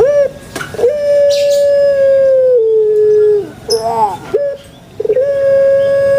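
Puter pelung, a domestic Barbary dove (Streptopelia risoria) bred for its long voice, calling: a short note, then a long drawn-out coo that steps down in pitch and falls away, a few short gurgling notes, and a second long coo starting near the end.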